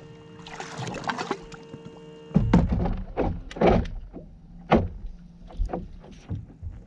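Sounds of a bass boat during a fish fight: a steady hum for the first couple of seconds, then a run of knocks and splashing against the hull.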